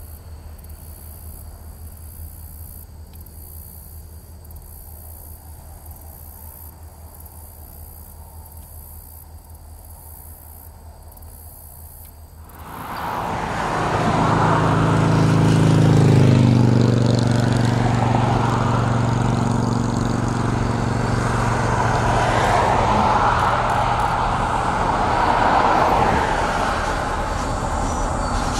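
Insects chirping in a faint steady pulse. About twelve seconds in, the sound jumps abruptly to loud diesel locomotive engines running under power, with a low drone whose pitch drops a few seconds later, over a steady rumble.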